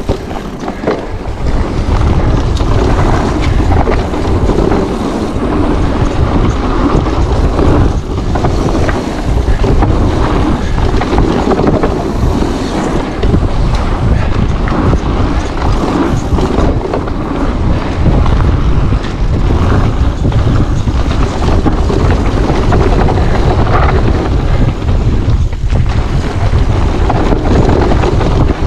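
Wind buffeting an action-camera microphone while riding an e-mountain bike down a trail. Under it runs a continuous low rumble from the bike on the trail.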